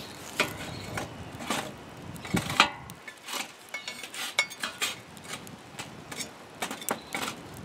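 Metal tongs clinking and scraping against charcoal briquettes and metal pans as the coals are arranged under a cast-iron Dutch oven, with knocks from a metal charcoal chimney being handled. The clicks and knocks are scattered and irregular, with a couple of brief metallic rings.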